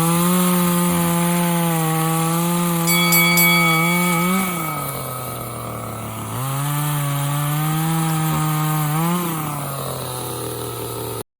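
Parkside PBBPS 700 top-handle petrol chainsaw's small two-stroke engine running at high revs. The revs drop about four seconds in, come back up for a few seconds, then drop again before the sound cuts off suddenly near the end.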